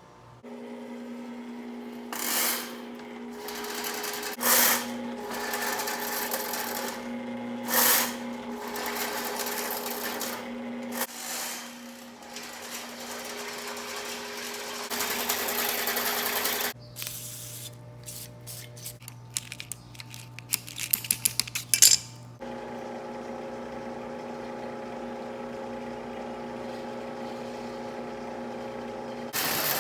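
Electric drain-cleaning machine running: a steady motor hum with repeated louder surges of noise, and a fast rattle of clicks about two-thirds of the way through.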